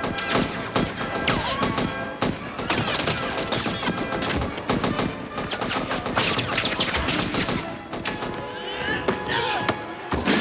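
A rapid, continuous string of sharp cracks and clatter, like a fusillade, over dramatic film score.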